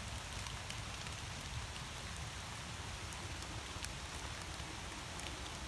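Steady rain falling, with many small drop ticks over an even hiss and a low rumble underneath.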